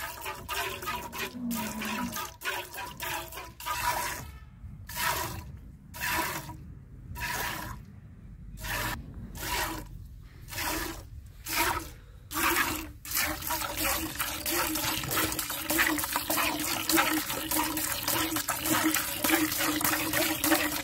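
Milk squirting into a pail as a cow is milked by hand: separate hissing squirts about one and a half a second from about four seconds in, turning into a faster, near-continuous stream from about thirteen seconds.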